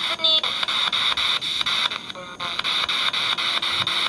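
Spirit Box radio scanner sweeping through stations on a slowed sweep: steady static chopped into rapid, even steps, with brief snatches of broadcast voices near the start and about two seconds in.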